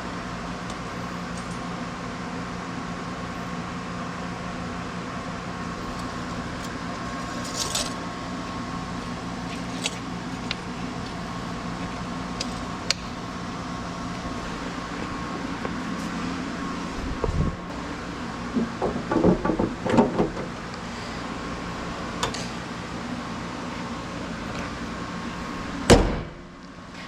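A steady mechanical hum with a low drone and a higher whine. Past the middle come a few seconds of clattering knocks. Near the end a single loud thump is heard, and the hum then falls away.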